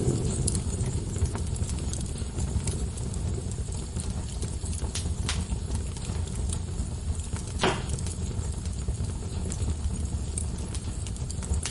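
Wood fire burning in a fireplace: a steady low rumble with scattered small crackles and one louder pop about two-thirds of the way through.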